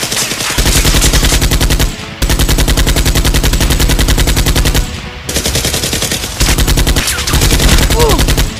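Movie-style machine-gun sound effects for a Nerf blaster: rapid automatic fire in long, loud bursts, with brief breaks about two seconds in, around five seconds in, and near seven seconds.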